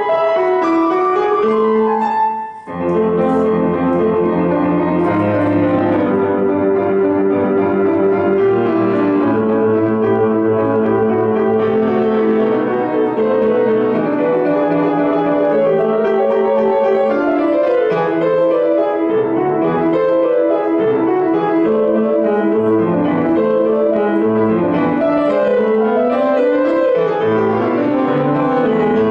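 Solo grand piano being played, with a brief break about two and a half seconds in before the music resumes with low bass notes under the melody.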